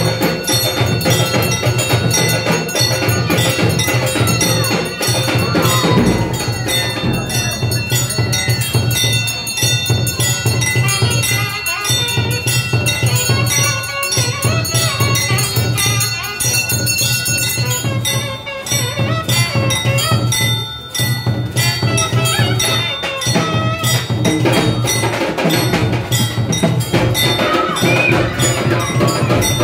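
Temple bells ringing rapidly and without a break, with a steady beat of percussion, accompanying an aarti lamp offering.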